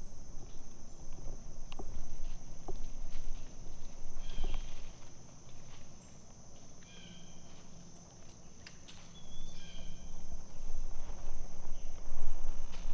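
Steady high-pitched drone of insects (crickets) in the woods. A few short chirps come through over it, and scattered clicks, knocks and rustles from the camera mount being handled, with low rumble growing louder in the second half.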